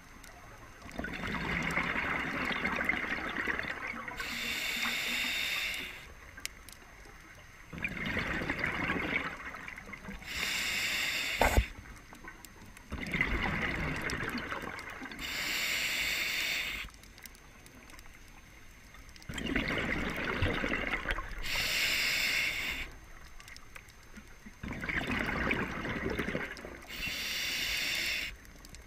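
Scuba diver breathing through a regulator underwater: about five slow breaths, each a hissing draw followed by a rush of exhaled bubbles, with short quiet pauses between. There is one sharp knock about eleven and a half seconds in.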